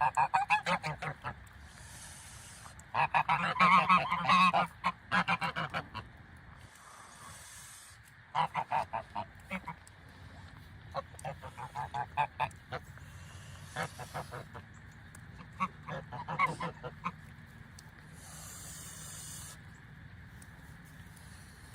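Geese honking in repeated volleys of rapid, overlapping honks, the busiest bouts near the start and a few seconds in, with short pauses between bouts.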